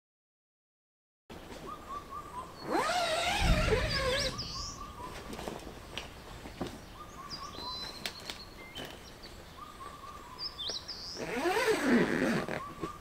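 After a second of silence, birds sing in a forest. A short whistled note repeats about every two seconds, and louder warbling calls come about three seconds in and again near the end. A dull thump is heard about three and a half seconds in.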